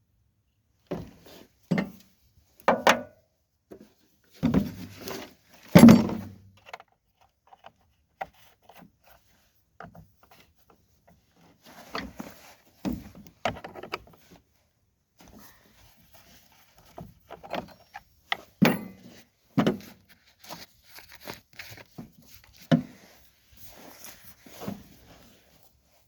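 Pieces of firewood being handled and dropped, a string of irregular knocks and thuds with short pauses between; the heaviest thuds come about five and six seconds in.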